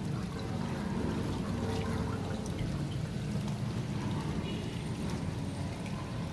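Water pouring steadily out of a water tank's opened drain, flushing rust sediment from the bottom of the tank.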